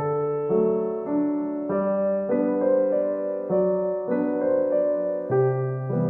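Background music on piano or electric keyboard: a gentle melody whose notes and chords change every half second to a second over low bass notes.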